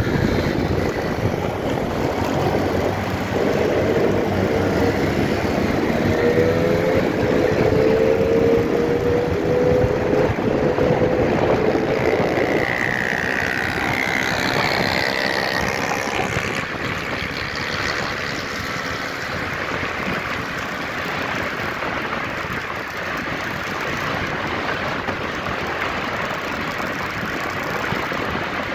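Riding a motorcycle: wind rushing over the microphone with the engine running, its note climbing in pitch between about 3 and 12 seconds in as it speeds up.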